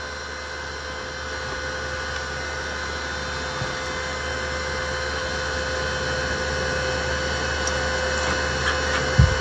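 Inverter welding machine's cooling fan running steadily, a constant tone over a low hum, growing slightly louder; a soft low knock near the end.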